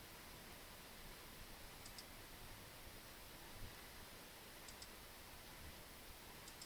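Near silence with a steady hiss, broken by three faint computer-mouse clicks about two seconds apart.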